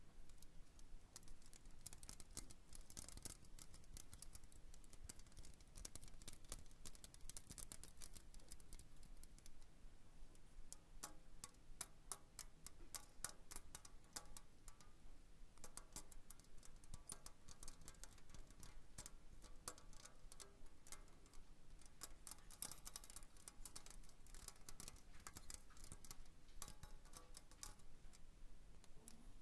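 Faint, rapid, crisp clicking and tapping of fingernails on Christmas decorations, close to the microphone. From about eleven seconds in, a faint pitched ringing lies under the taps.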